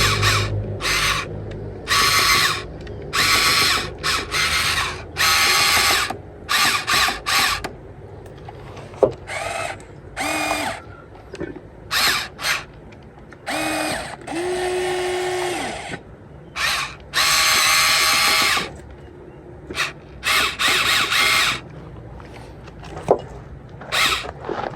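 Huina radio-controlled crawler excavator's electric motors whirring in repeated on-off bursts, most under a second long, as it is driven on its tracks. A longer steady-pitched run comes about two-thirds of the way through.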